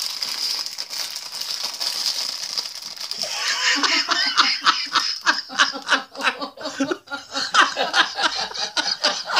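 People laughing in repeated short bursts, breaking out about three seconds in after a steady hiss.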